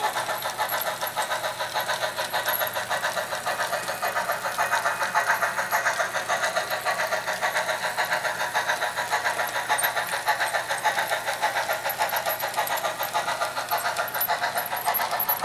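HO-scale model steam locomotive running with its train of hopper cars: a steady, rhythmic sound of about four beats a second.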